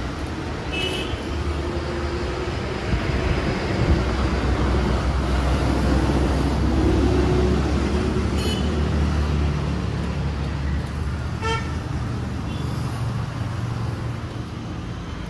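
Road traffic: a steady engine and tyre rumble that swells as a vehicle passes mid-way, with a few short vehicle horn toots.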